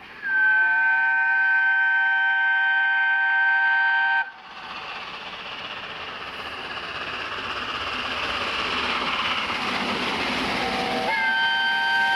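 Peppercorn A1 steam locomotive 60163 Tornado sounding a long whistle of about four seconds, several notes held together. Then the rush of the train running in at speed grows steadily louder, and near the end a second whistle begins, sliding up in pitch as it opens.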